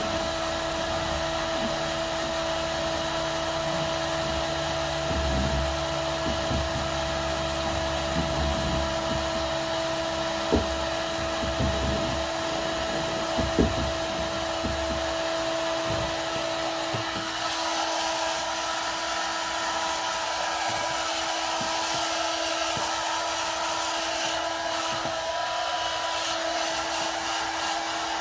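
Electric heat gun blowing steadily while softening the plastic flange of a flush-mount rod holder, with a few light knocks near the middle. About two-thirds of the way in its tone changes and the hiss becomes brighter.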